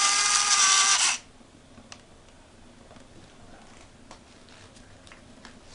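Servo-driven camera gimbal whining with several steady high tones, cutting off suddenly about a second in as the stabilization is switched off. A few faint clicks follow.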